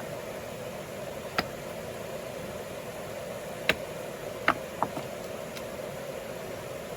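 A steady machine-like hum with four short, sharp knocks scattered through it, the loudest two just before and just after the middle.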